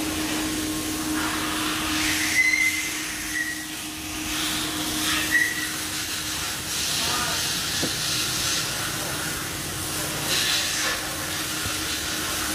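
CNC milling machine running in a metal workshop: a steady hiss over a constant hum, with brief high squeals about two and a half, three and a half and five seconds in.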